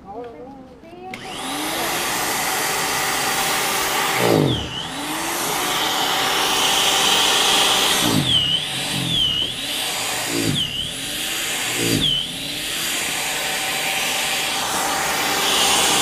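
Corded electric snow thrower starting about a second in and running with a loud motor whine. Its pitch dips sharply and recovers several times as it bogs down in the snow.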